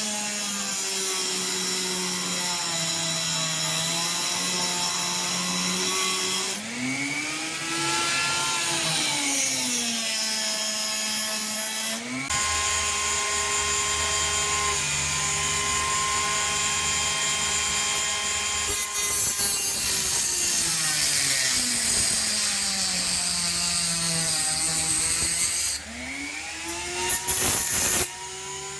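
Small handheld power tool motor whining on a sword blade, its pitch repeatedly sagging and climbing again. Near the end it breaks into rattling clicks.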